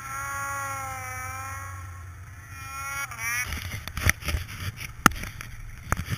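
Arctic Cat 800 snowmobile's two-stroke engine running at a low, slightly wavering speed, then rising briefly in pitch about three seconds in before the engine tone stops. Irregular sharp knocks and clicks follow.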